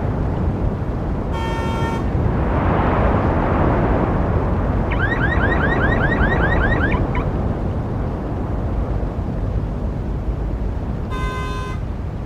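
Busy road traffic with a steady rumble of engines and tyres. A car horn gives a short honk about a second and a half in and again near the end, and in the middle a fast run of rising electronic chirps, about six a second, lasts about two seconds.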